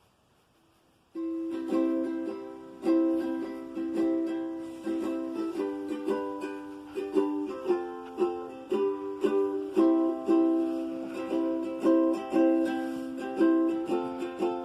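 Acoustic guitar music: plucked notes and chords in a steady rhythm, each note ringing and dying away, starting abruptly about a second in after near silence.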